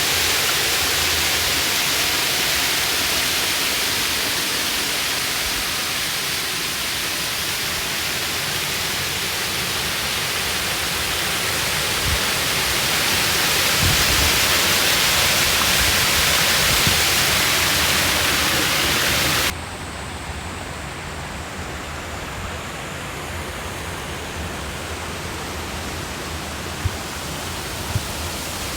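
Steady rush of water falling over a wide, low rock waterfall: a two-tier fall about 4 m high and 30 m wide. About two-thirds of the way in the rush drops suddenly quieter and duller, then holds steady.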